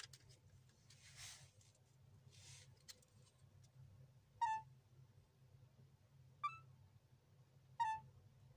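Three short, high chirps, a second and a half to two seconds apart, over a low steady hum.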